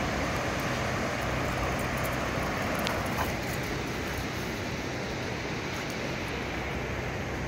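Steady outdoor noise of wind and ocean surf, an even hiss with a low rumble of wind on the microphone, easing slightly about three seconds in.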